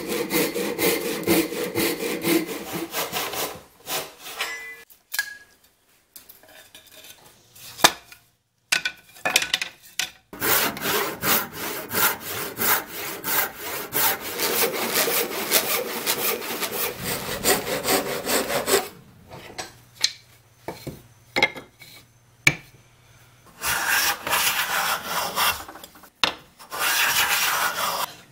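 Japanese ryoba pull saw ripping down the grain of hardwood held upright in a vise: runs of quick rasping strokes, broken twice by pauses of a few seconds with only a few light knocks.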